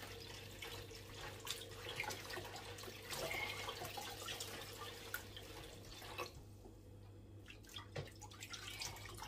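Kitchen tap running into a stainless steel sink while wet wool knits are rinsed under it; the flow stops about six seconds in, leaving a few faint drips and splashes as the wool is squeezed in the water.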